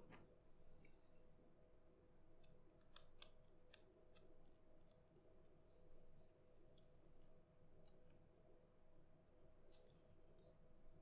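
Faint, irregular light clicks and scratches of a small screwdriver driving tiny screws into a PinePhone's frame during reassembly, over a faint steady hum.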